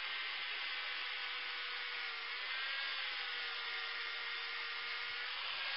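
Handheld electric angle grinder running under load, a steady whine over a hiss, its pitch sagging and recovering slightly as it is pressed into the work.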